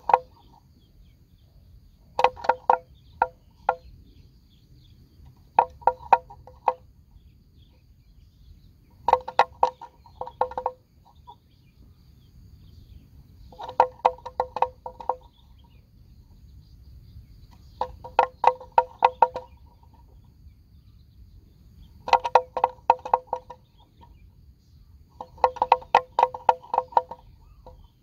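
Wooden bell hung at a grazing water buffalo's neck clonking in bursts of rapid knocks, one burst about every four seconds.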